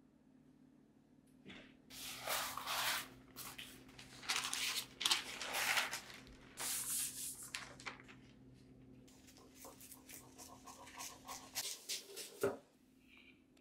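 Sheet of rice paper rustling and crinkling as it is spread out and handled, then scissors snipping through the paper, with a single sharp knock near the end.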